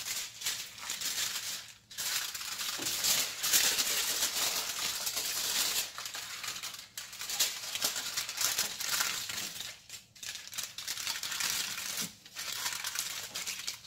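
Aluminum foil crinkling and crackling as hands press and crimp it over the rims of filled flan tins, in irregular stretches broken by brief pauses.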